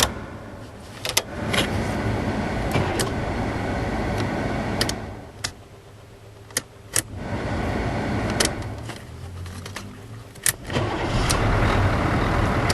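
Starter of a 6.2 diesel K5 Blazer cranking in several separate bursts with quieter gaps between, and sharp clicks from the key and column switch, as the repaired steering-column starter switch is tested.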